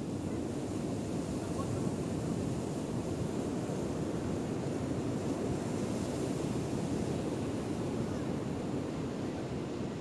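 Ocean surf breaking and washing up a beach: a steady, continuous rush of waves, with some wind on the microphone.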